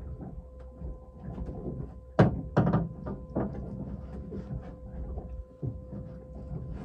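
A few sharp knocks and thumps on a fishing boat, the loudest two close together a little over two seconds in, over a steady low drone with a thin steady whine.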